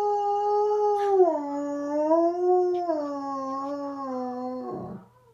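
German Shepherd–Groenendael cross dog howling: one long held howl that steps down in pitch about a second in and again about three seconds in, then fades out near the end with a short breathy sound. A sharp click sounds about a second in.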